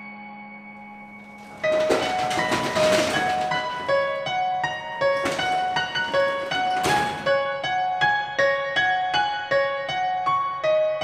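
Piano music: one note dies away, then about a second and a half in a gentle melody of evenly spaced repeated notes begins and runs on, with a few short washes of noise over it.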